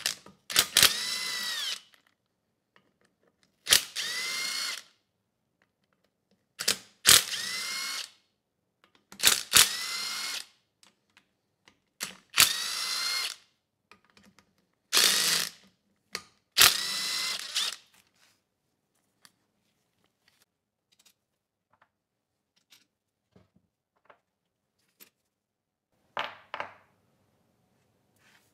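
Cordless power driver with a socket backing out the crankcase cover bolts of a Subaru EX30 small engine during a teardown. It makes seven short runs, each spinning up with a rising whine and then stopping, followed by a briefer burst near the end.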